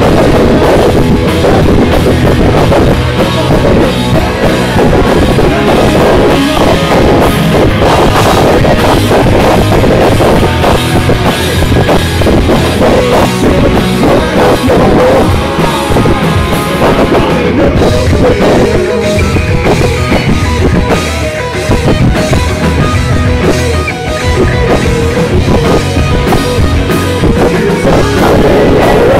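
Rock band playing live: electric guitars over a drum kit, loud and dense throughout, recorded close on a mobile phone's microphone.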